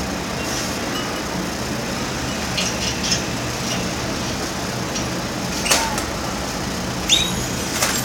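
Caged canaries giving a few short chirps over a steady low hum and hiss.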